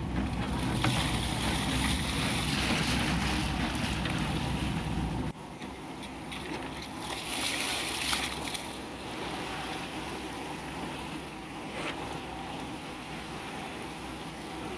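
A small boat's engine running, then cutting out suddenly about five seconds in as it runs out of fuel; after that, wind and waves lapping at the hull.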